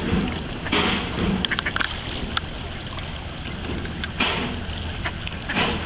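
Mallard ducks quacking: three short harsh calls, about a second in, about four seconds in and near the end, over a steady low rumble.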